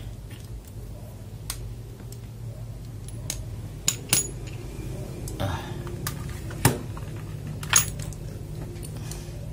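Plastic keycaps being handled and pressed onto the switches of a mechanical keyboard: scattered sharp clicks and clinks, the two loudest close together about two-thirds of the way through.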